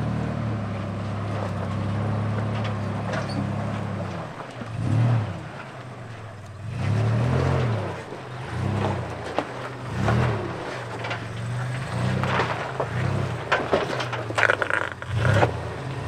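Off-road truck engine idling steadily, then revved up and down in short repeated bursts, about one every second or so, as it works over trail obstacles. A few knocks come near the end.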